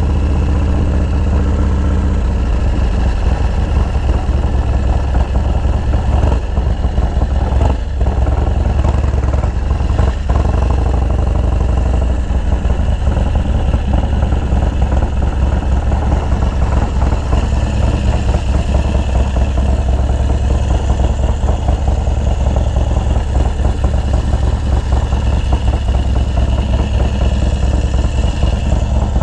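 Harley-Davidson Dyna's 124ci S&S V-twin engine running at low speed with a steady low note while the bike rolls slowly and comes to a stop.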